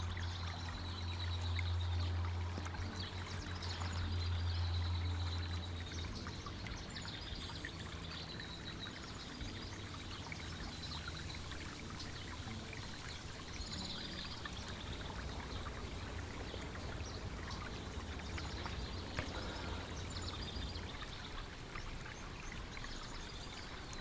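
Forest ambience: a steady rushing hiss with small birds singing short, high repeated phrases throughout. A low rumble sits under it for the first six seconds or so, then fades.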